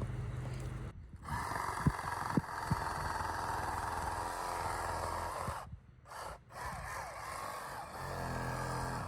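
Corded reciprocating saw with a pruning blade running and cutting through a tree limb, its motor whine wavering under load. The sound breaks off abruptly twice, about a second in and again around six seconds.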